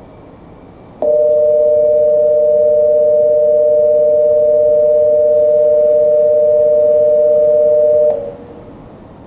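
Station platform departure bell: a loud, steady electronic two-tone ring that starts about a second in and stops about seven seconds later, signalling that the train's doors are about to close for departure.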